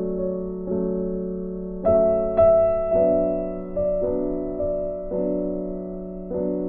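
Background music: slow, gentle piano chords, each struck and left to fade, about one a second.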